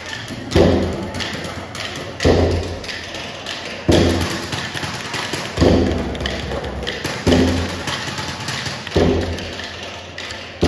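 A group of dancers stomping their feet in unison in a steady rhythm: six heavy thuds about a second and a half apart, each trailing off before the next.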